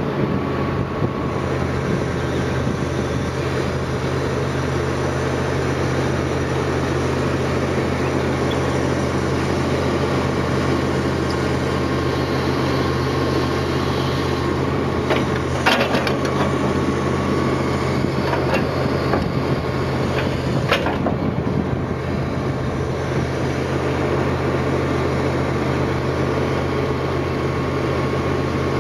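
Excavator-mounted hydraulic vibratory plate compactor running against gravel, with the excavator's diesel engine running under it: a steady low hum, broken by a couple of brief sharp knocks about halfway through.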